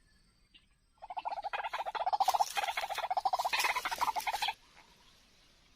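White-breasted waterhen call: a fast, harsh chattering run of notes that starts about a second in and cuts off suddenly some three and a half seconds later.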